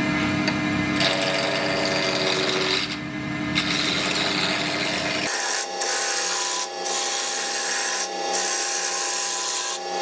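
Roughing gouge cutting a spinning walnut blank on a mini wood lathe: a steady scraping hiss of the cut over the hum of the lathe motor, broken by a few brief pauses where the tool lifts off the wood.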